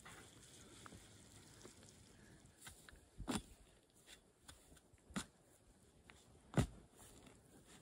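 A long-handled shovel driven into grassy soil and roots: three crunching thuds about one and a half to two seconds apart, the last the loudest.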